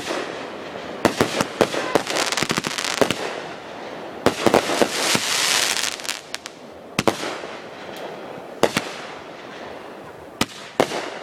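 Fireworks going off: quick clusters of sharp bangs in the first half, a crackling hiss about five seconds in, then single bangs a second or two apart.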